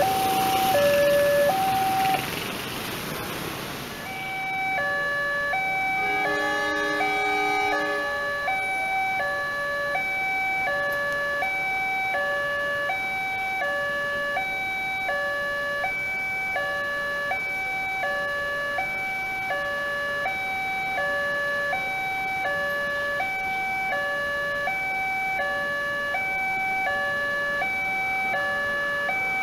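Railway level-crossing warning alarm sounding a two-tone electronic chime, a high and a low note alternating roughly every two-thirds of a second. For the first four seconds it sits under loud motorcycle traffic, which then cuts away.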